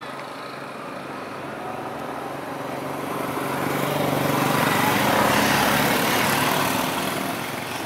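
A motor engine running steadily, its noise swelling to a peak about five seconds in and then easing off.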